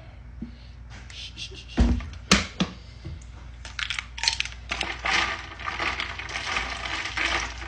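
A couple of sharp knocks, then ice cubes clinking and rattling in a cup of iced coffee through the last few seconds.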